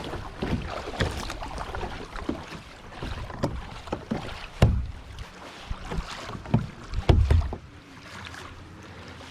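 Fishing kayak being paddled: water splashing and swishing with the paddle strokes, with scattered sharp knocks. Wind gusts on the microphone, heaviest about halfway through and again around seven seconds in.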